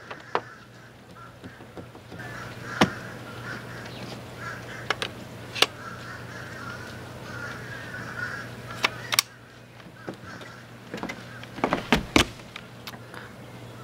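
Scattered sharp clicks and knocks of gear being handled at a dock box, a telescoping aluminium pole among it, over a steady low hum. Birds call in the background through much of it.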